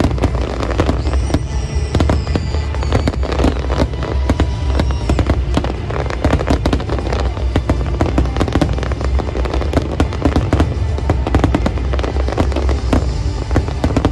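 Fireworks display: a continuous barrage of rapid bangs and crackling over a deep, rolling rumble of shell bursts.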